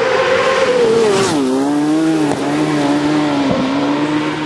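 Racing motorcycle engine at high revs passing close by. Its note drops sharply about a second in as it goes past, then holds lower and steady as it pulls away, with two brief dips in the note.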